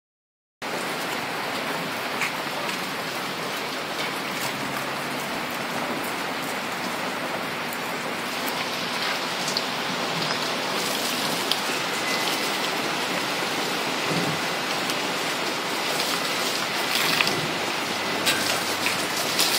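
Steady hiss of falling water spattering on wet grass and ground, with a few sharp spatters near the end.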